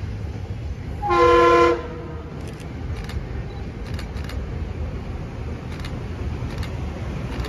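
Metro-North M3 electric multiple unit sounding its horn in one short blast, under a second long, about a second in, over the low rumble of the approaching train.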